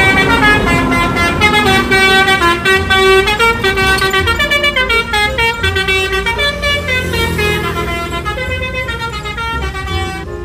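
Telolet bus horn playing a tune: several pitches sound together and step from note to note a few times a second, trailing off over the last few seconds.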